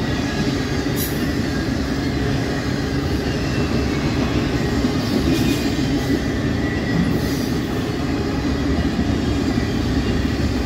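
Freight cars of an intermodal train, flatcars loaded with highway trailers, rolling past at speed: a steady rumble of steel wheels on the rails, with a faint high wheel squeal.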